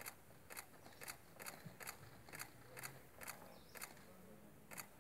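Camera shutter firing in a rapid run of faint, sharp clicks, about two a second, with a brief pause near the end.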